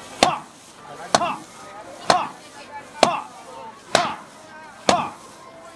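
Iron wok clanking about once a second, six times, as fried rice is tossed high and caught over a gas burner; each clank rings briefly.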